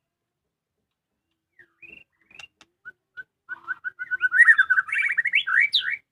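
White-rumped shama singing: a few separate whistled notes, then, from about halfway, a fast run of rapid varied notes that is loudest near the end.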